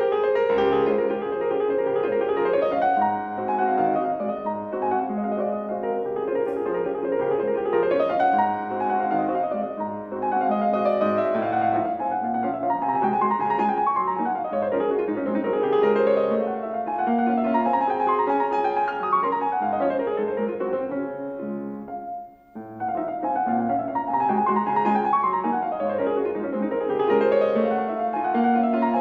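Grand piano played solo: fast running passages that climb and fall over steady lower accompanying notes, with one brief pause about two-thirds of the way through.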